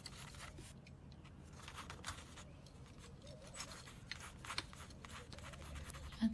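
Paintbrush stroking and dabbing on a canvas board: faint, short strokes at an uneven pace over a low steady room hum.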